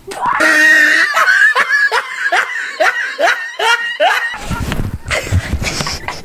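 A person laughing hard: a quick run of short ha-ha bursts, each falling in pitch, followed near the end by about two seconds of rough noise.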